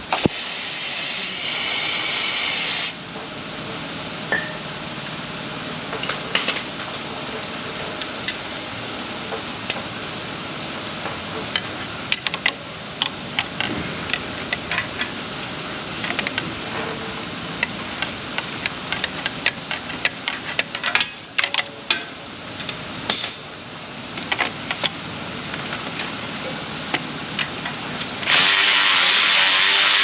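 A cordless power tool runs for a couple of seconds near the start and again near the end, spinning out exhaust bolts. In between comes a long run of sharp metallic clicks and clinks from a hand ratchet and socket extension working the bolts.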